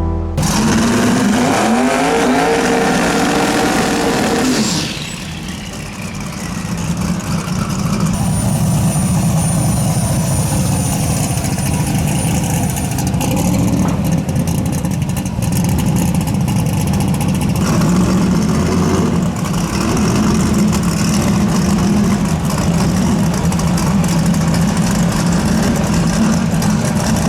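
Drag race car launching and accelerating hard, its engine pitch rising for about four to five seconds, then running on steadily and loudly.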